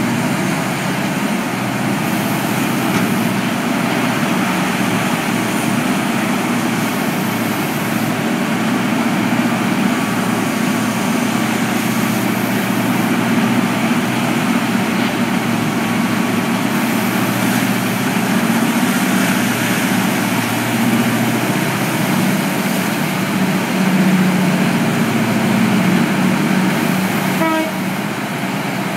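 Steady, loud drone of an O&K RH400 hydraulic mining shovel's diesel engines working as it digs, with a strong low hum that swells and eases from time to time. The sound drops a little near the end.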